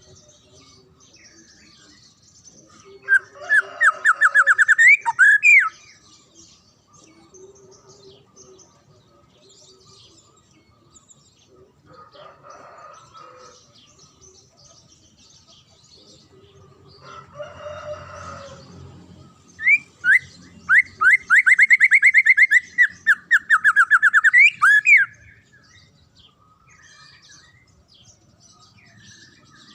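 Songbird giving two rapid trills of quickly repeated, rising whistled notes, the first a few seconds long and the second longer past the middle, with fainter chattering calls between them.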